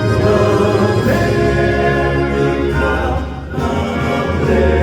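Male vocal quartet singing with orchestral backing, sustained chords held between sung lines; the sound dips briefly about three and a half seconds in and then swells back up.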